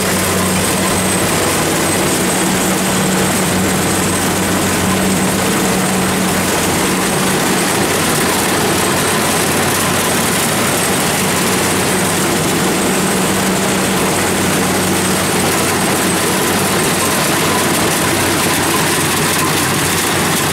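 Kubota DC-70 combine harvester at work cutting and threshing rice: a steady engine drone with a low hum over dense mechanical noise, unchanging throughout.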